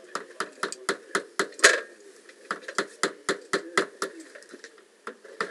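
Fast, even knocking or tapping at about four strikes a second, in two runs with a short break between them. The strongest strike comes about a second and a half in.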